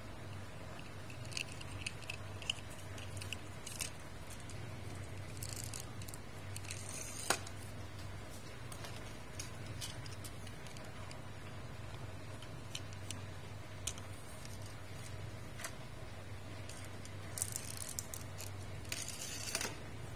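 Light clicks and short rattles of small toy cars being handled and set down on a concrete floor, with one sharper click about seven seconds in, over a steady low hum.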